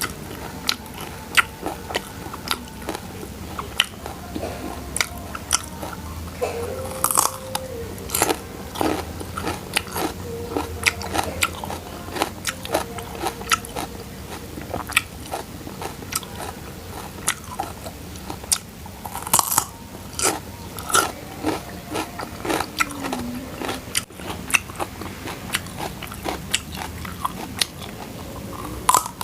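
A person biting and chewing crunchy food close to the microphone: a dense run of sharp crunches, some louder bites standing out, with no pause.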